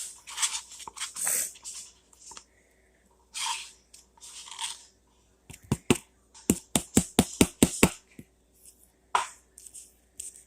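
Slime handled by hand: short rustling, squishing noises, then past the middle a quick run of about a dozen sharp clicking pops, and one more near the end.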